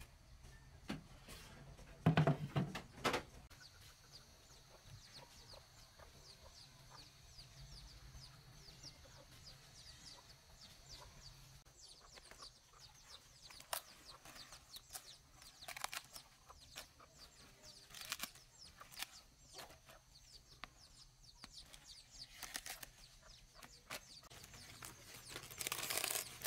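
Chickens clucking faintly, with a short louder burst about two seconds in. From about the halfway point come scattered crisp clicks and crackles of cabbage leaves being snapped and stripped by hand, rising to a fuller rustle near the end.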